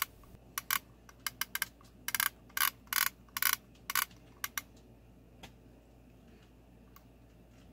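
Vintage Singer buttonholer (Simanco 160506) with its white adjusting knob turned by hand, the mechanism ratcheting in a run of sharp, irregular clicks, often in pairs, that stops about five seconds in. The knob is winding the cloth clamp to one click past its most forward position.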